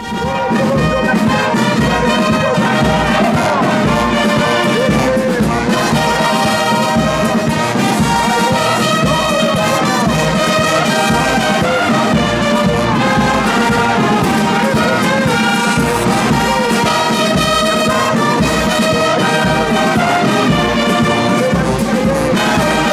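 Brass band with sousaphones, trumpets and trombones playing a march, loud and steady over an even low beat of about two a second.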